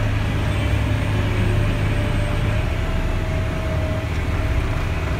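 Caterpillar 966G wheel loader's diesel engine running steadily as the machine drives along, heard inside the cab: a constant low hum with a faint steady whine above it.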